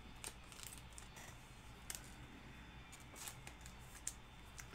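Trading cards being handled and sorted by hand: faint, scattered clicks and short slides of card stock against card, over a low steady room hum.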